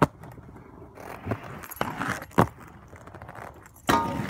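Aggressive inline skates clacking and scraping on concrete with several sharp impacts, then, near the end, a skate grinding onto a metal handrail with a loud metallic scrape and ring.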